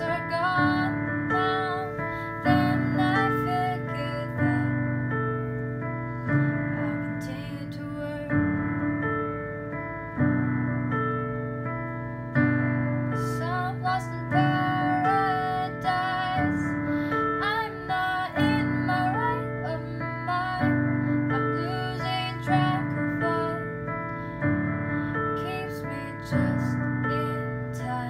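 A girl singing a slow song while accompanying herself on a digital piano, with sustained chords changing about every two seconds under the sung melody.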